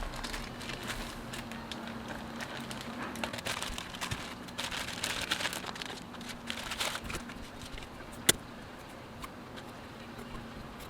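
Keyboard kit packaging being handled and unwrapped: crinkling and rustling with many small clicks, and one sharp click about eight seconds in.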